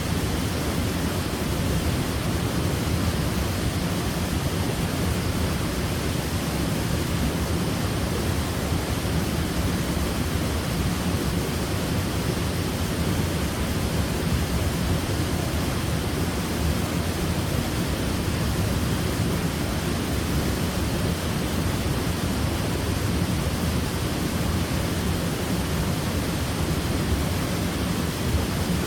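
Waterfall: a steady, unbroken rush of falling water, heaviest in the low range.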